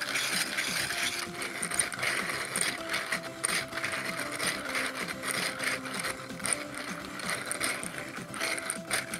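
A hand-turned 3D-printed plastic eight-cylinder radial engine model: quick, uneven clicking and clattering as the pistons slide in their cylinders and the rods work on the hub. The freshly printed parts are not yet run in.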